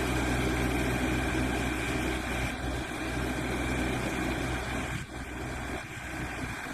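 Steady hum of a running vehicle engine, with a few steady higher tones over it and a brief dip about five seconds in.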